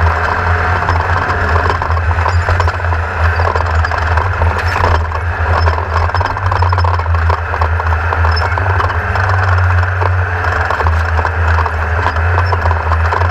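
Class 1600 desert race buggy's air-cooled VW engine running at a steady pitch, with constant rattling and knocking from the chassis over rough ground.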